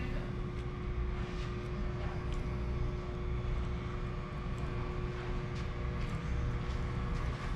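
Steady hum of ventilation fans in a steel compartment below decks: a low rumble with two constant tones, and a few faint taps.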